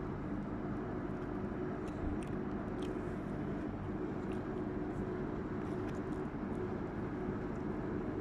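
Steady low hum of an idling car, with faint scattered clicks and bites of someone eating.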